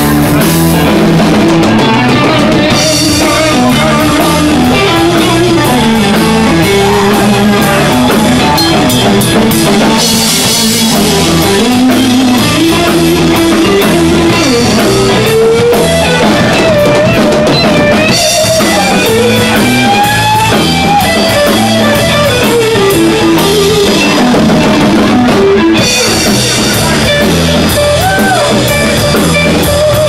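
Live blues band playing an instrumental passage: electric guitar lines with bent notes over a steady drum-kit beat, with no vocals.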